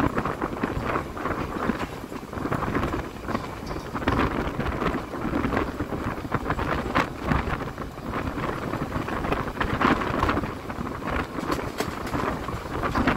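Wind buffeting the microphone over the rumble and clatter of a narrow-gauge White Pass & Yukon Route passenger train rolling along the rails, heard from the open side of a car.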